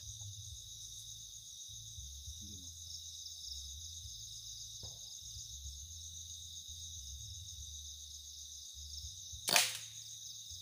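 Crickets and other night insects chirping steadily, then a single sharp air rifle shot near the end.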